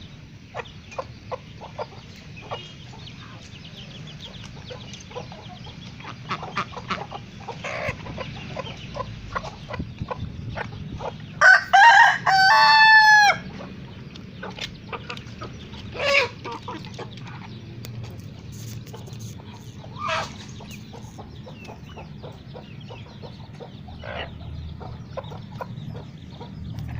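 Flock of kampung (village) chickens clucking, with a rooster crowing once, loud, about halfway through, and a few shorter calls after it.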